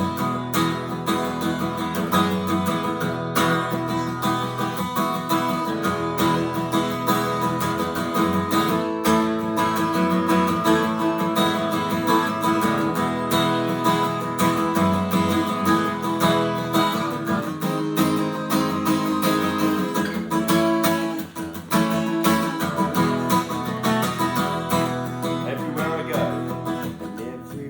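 Acoustic guitar being strummed as worship-song accompaniment.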